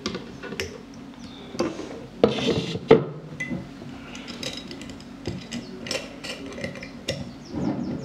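Kitchen knocks and clinks: a plastic blender jug tapped against a glass jar and set down on the table, with one sharp knock about three seconds in, then the jar's swing-top lid and wire clasp clicking as it is closed.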